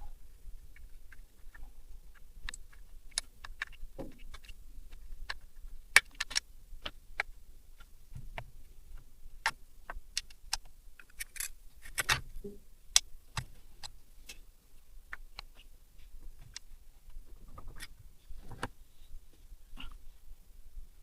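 Irregular clicks and clinks of small metal engine parts and hand tools being handled and set down, a few sharper knocks among them.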